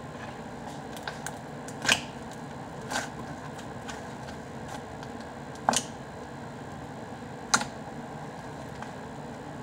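Fluffy slime with crunch beads being squeezed and pressed by hand, giving a few sharp pops and small crackles over a faint steady hiss.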